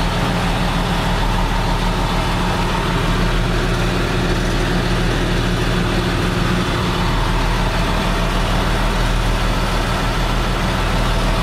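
Caterpillar C7 inline-six diesel engine of a 2006 Ford F750 water truck idling steadily in neutral, heard from inside the cab.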